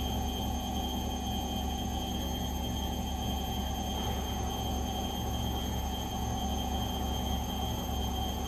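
Gorenje washing machine running, with a steady low hum and rumble and a constant high-pitched whine on top.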